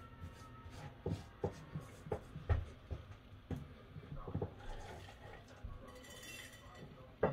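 A hand patting and pressing dry rub onto a slab of raw beef short ribs on a plate: soft, irregular pats and light taps, about one every half second to second, with a sharper knock near the end as the slab is lifted and turned.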